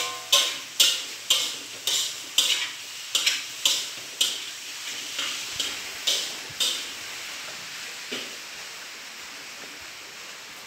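A metal ladle scraping and knocking against a wok while fried rice is stir-fried, about two strikes a second over a steady sizzle. The strikes stop about six and a half seconds in, and the sizzle fades slowly.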